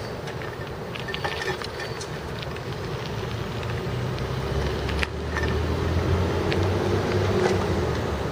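A vehicle engine running with a low rumble that gets louder from about halfway through, over steady street noise with scattered light clicks.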